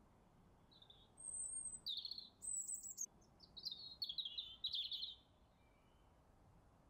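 A songbird singing a quick series of high notes for about four seconds, starting about a second in, over faint outdoor background noise.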